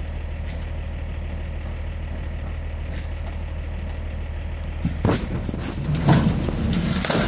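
Box truck's engine idling with a steady low hum; about five seconds in, a loaded pallet jack is pulled off the truck's metal liftgate, its wheels clattering and scraping in a loud run of knocks until the end.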